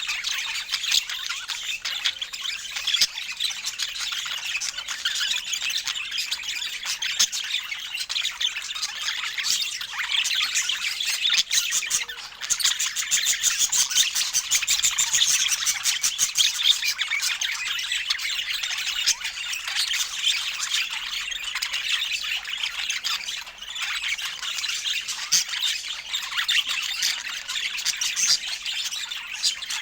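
Budgerigars chattering and warbling continuously, with squawks mixed in and a quick run of clicky notes about halfway through.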